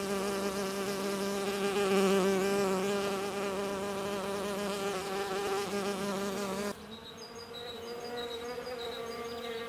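Bees buzzing: a steady, drawn-out buzz that wavers slightly in pitch. About two-thirds of the way through it cuts off abruptly and gives way to a quieter, higher-pitched buzz with faint repeated high chirps.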